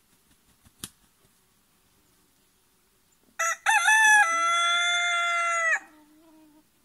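A rooster crowing once, about three and a half seconds in: a short first note, a rise, then a long held final note that cuts off sharply after about two seconds. A faint sharp click comes about a second in.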